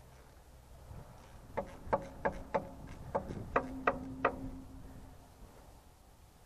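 Ratchet wrench turning the bolts of a tractor's hydraulic lift distributor: about nine sharp metallic clicks over three seconds, roughly three a second, with a brief low hum under the last few.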